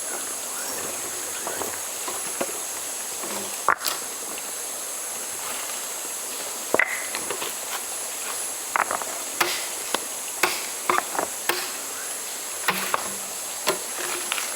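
Steady high-pitched insect chorus, with scattered sharp clicks and knocks that come more often in the second half.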